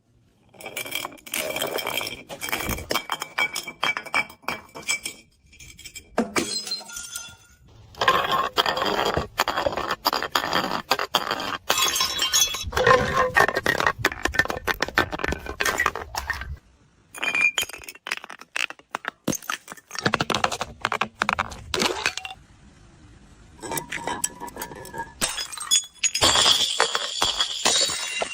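Glass bottles clinking and breaking, with shards of glass crunching and rattling: many sharp impacts in several runs separated by short pauses, some with a brief ringing tone.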